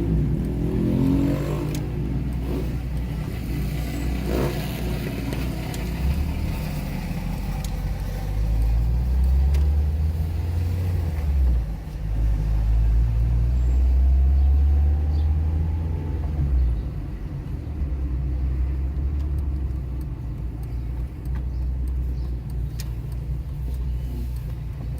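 Car engine and road noise from a moving car: a steady low rumble that swells twice, from about a third of the way in to about two-thirds, with a short dip in between.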